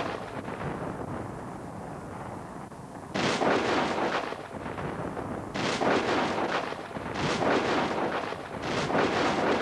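A series of booms, each starting sharply and dying away over about a second; a fading one opens, then four more come about every two seconds from about three seconds in.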